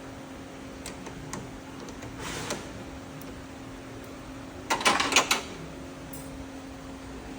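Starter solenoid of a Mercedes ML350 chattering in a short rapid burst of clicks about five seconds in, after a few single clicks, over a steady hum. The chatter is the sign of a flat battery that cannot turn the starter.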